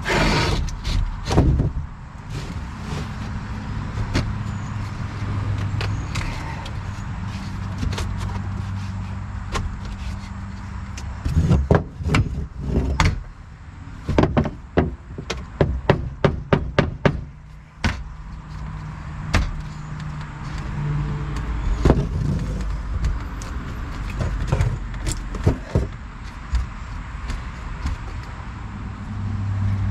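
Wooden knocks and bumps as a piece of plywood is worked and tapped into place, including a quick run of about eight strikes near the middle. A steady low hum runs underneath.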